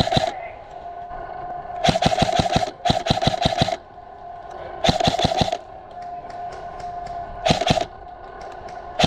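Krytac Trident MKII CRB-M electric airsoft rifle firing short full-auto bursts, a rapid clatter of shots over its gearbox whine, about five bursts separated by pauses. Fainter shots from other airsoft guns crackle in the gaps.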